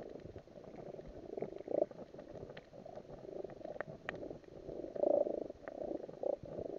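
Underwater ambience on a coral reef, heard through the camera's housing: an uneven, muffled rumbling and churning with scattered sharp clicks.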